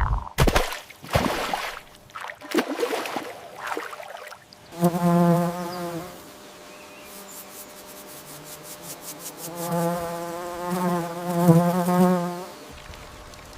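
A flying insect buzzing in two stretches, a short one about five seconds in and a longer one that wavers slightly near the end, after some scattered clicks and rustles.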